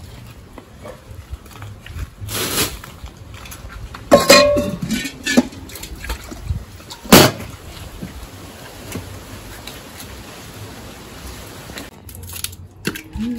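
Scattered knocks and clatters of cooking work. A brief ringing tone comes about four seconds in, and the loudest, sharp knock about seven seconds in.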